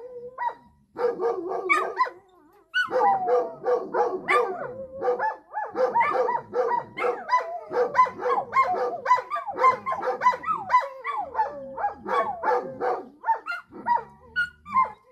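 A dog's rapid, high-pitched barks and yips run together into wavering, drawn-out cries: a dog learning to howl. The cries come in short bursts at first and then run almost without a break from about three seconds in.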